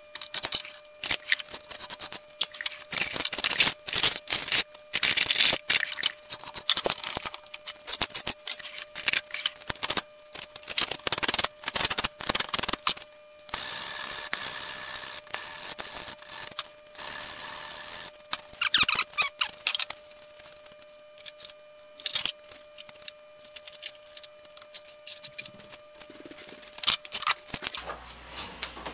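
Hand tools working wood: quick strokes of a small hand saw and a file trimming a glued wooden dowel plug flush in a drill's wooden handle. A longer unbroken stretch of scraping comes a little past the middle, and the strokes thin out toward the end.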